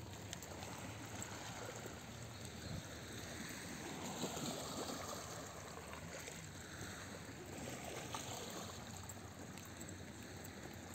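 Small lake waves lapping on a pebble shore, a soft wash that swells about four seconds in and again near eight seconds.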